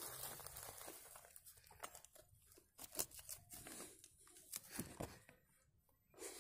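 Small metal hand blade scraping and digging into dry hillside soil around a buried wild sweet potato tuber, loosening crumbly earth. It comes as faint, irregular scratching and clicking, with a few sharper scrapes about three and five seconds in.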